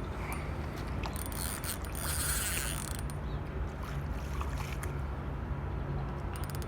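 Fishing reel being wound in on a hooked salmon: a steady mechanical whirring with scattered clicks.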